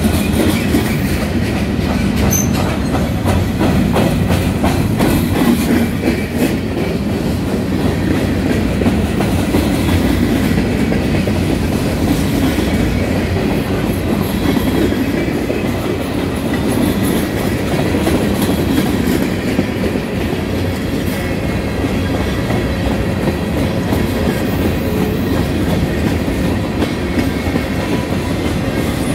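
Mixed freight cars (covered hoppers, gondolas and boxcars) rolling past at close range: a steady rumble of steel wheels on rail, with a clickety-clack as the wheels cross rail joints.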